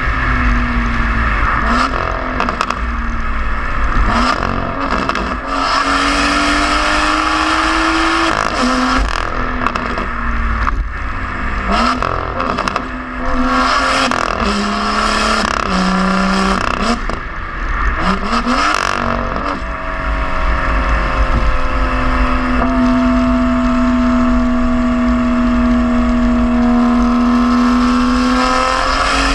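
BMW M2 (F87) N55 turbocharged inline-six heard at its tailpipes through a Valvetronic Designs valved stainless-steel exhaust with catless downpipe, while driving through a tunnel. The engine pulls through several accelerations, each rising in pitch and dropping sharply at a gear change, then holds a steady cruise for the last several seconds.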